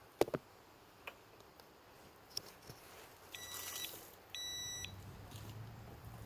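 Two short electronic beeps, each about half a second long, less than a second apart, after a few sharp clicks near the start.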